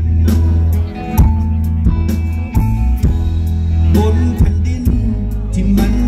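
A live band playing through a stage PA, with a heavy bass line changing note about once a second under regular drum hits. A man's voice sings into a handheld microphone over it.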